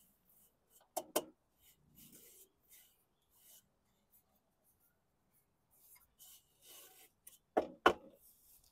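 Hand rubbing over and tapping on a walk-behind mower's 13-gauge steel deck: faint scuffing, with a quick pair of sharp knocks about a second in and another pair near the end.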